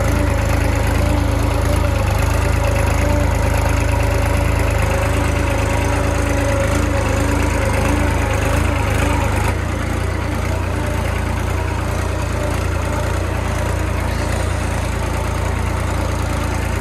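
Tractor's diesel engine running steadily, heard from the driver's seat, with a continuous low drone; its note drops a little about nine and a half seconds in.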